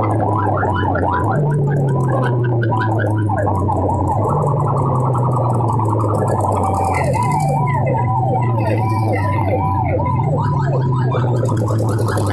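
Loud DJ music through a large PA sound system: a fast, siren-like warbling effect repeats over a heavy bass line that steps between two notes every second or so.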